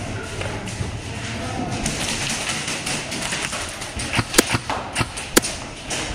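A quick cluster of about five short sharp cracks of airsoft fire, between about four and five and a half seconds in, over the steady background noise of an indoor airsoft hall.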